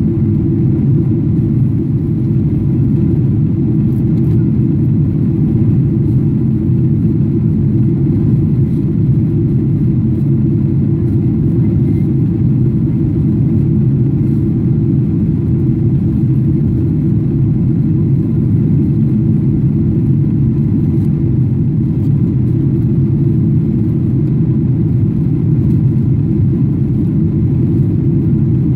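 Steady low drone inside the cabin of a Boeing 777-300ER climbing after takeoff: its GE90-115B engines and the airflow over the fuselage, heard through the cabin wall, with most of the sound deep and even.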